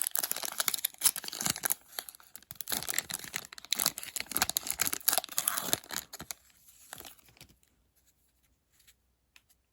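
Wrapper of a hockey trading-card pack being torn open and crinkled in the hands, a dense crackling that dies away about six to seven seconds in.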